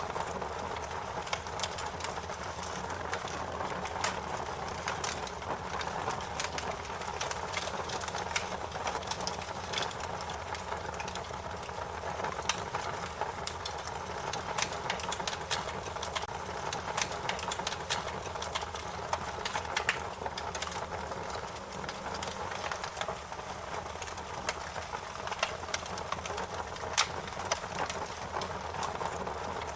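Wood fire crackling: a steady rushing bed of burning with frequent irregular sharp pops and snaps, a few louder ones now and then.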